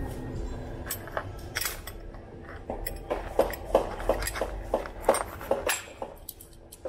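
Small metal hand tools clicking and clinking against a hydraulic brake caliper as its small bolts are unscrewed: irregular sharp metallic clicks, most frequent in the middle and thinning out near the end.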